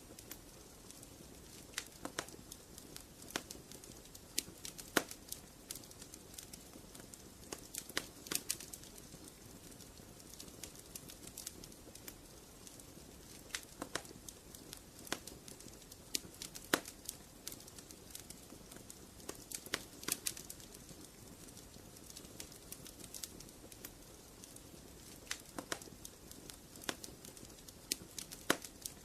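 Wood fire crackling in a fireplace: irregular sharp pops and snaps, sometimes in quick little clusters, over a soft steady hiss.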